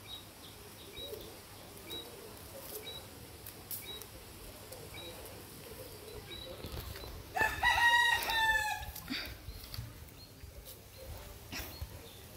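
A rooster crowing once, about halfway through, a single drawn-out call that falls slightly in pitch at the end. Faint short bird chirps and a few light clicks are heard around it.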